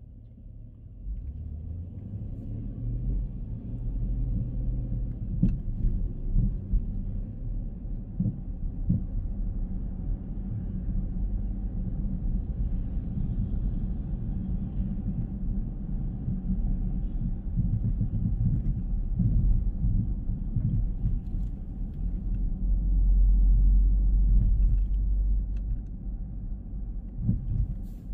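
Car on the move: a steady low rumble of engine and road noise that picks up about a second in and swells louder for a couple of seconds late on.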